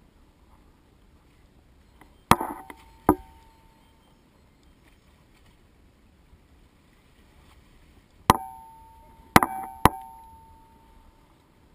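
Sharp knocks on something hard, each ringing briefly: two a little over two seconds in, then three close together near the end.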